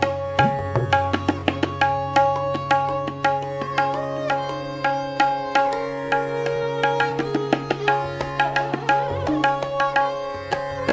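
Indian-style instrumental music: quick tabla strokes and a plucked-string melody over a steady low drone.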